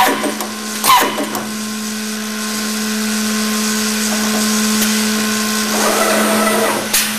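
Accu-Systems OHV CNC boring, routing and doweling machine running on a wooden panel: a steady motor hum with sharp knocks at the start and about a second in, and another just before the end.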